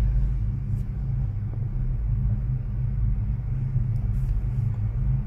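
Steady low rumble and hum inside a Firstbahn gondola cabin as it travels along the cable.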